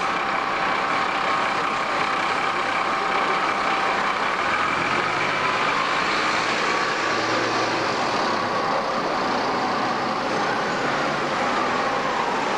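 Articulated diesel city buses running at a stop, with a steady engine hum over street traffic noise; the nearest bus pulls away.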